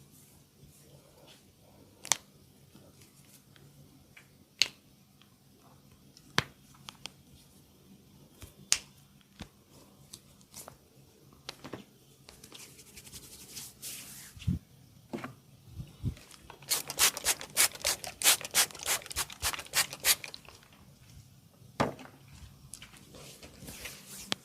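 Sharp cracking snaps from a barber's massage. Single cracks come every couple of seconds, then a quick run of about a dozen near the end, with a couple of dull thumps just before the run.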